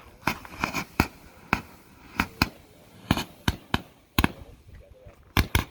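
Retro consumer firework barrage going off: an irregular string of sharp pops, two or three a second, some coming in quick pairs.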